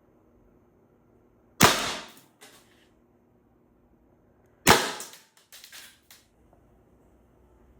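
Two air pistol shots about three seconds apart, each a sharp crack with a short fading tail, followed by a few light clicks of the gun being handled.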